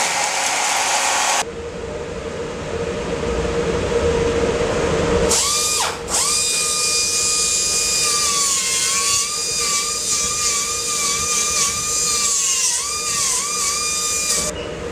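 A hair dryer blows briefly and cuts off. Then a pneumatic hand tool working a surfboard runs with a steady high whine, its pitch sagging and recovering several times.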